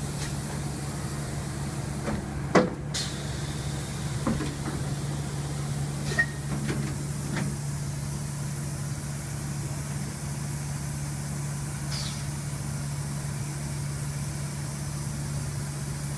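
CNC milling machine running with a steady hum and hiss, broken by a few short clanks, the loudest about two and a half seconds in.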